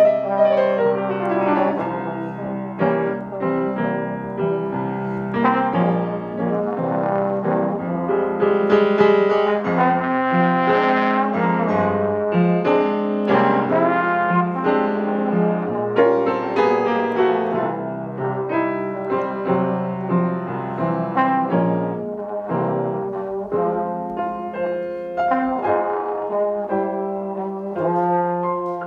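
Instrumental music: a Petrof grand piano playing together with a trombone, with sustained melodic horn notes over piano chords.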